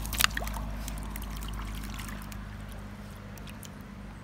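Shallow stony river trickling with a steady low rush, and a few sharp splashes and clicks near the start as a small dog wades through the water over the stones.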